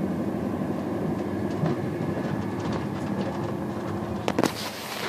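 Passenger train running, heard from inside the carriage: a steady rumble with a low hum and a few faint clicks. A single knock comes near the end.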